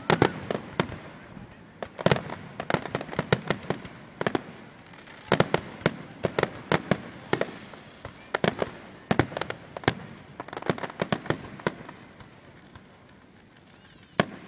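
Fireworks display: aerial shells bursting in rapid clusters of sharp bangs and crackles, with short lulls between volleys and a quieter spell near the end.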